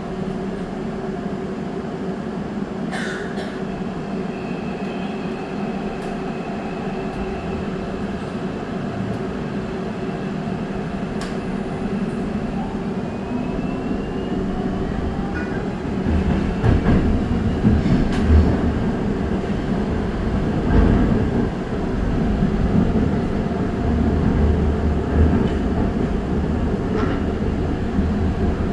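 Busan Metro Line 1 electric subway train pulling away and accelerating: a motor whine rising in pitch over a steady hum. The low running rumble grows louder about halfway through, with occasional sharp clicks from the wheels on the rails.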